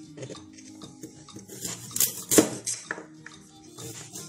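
Knife cutting a frozen carrot on a cutting board: two sharp knocks close together about two seconds in, with smaller taps around them, over soft background music.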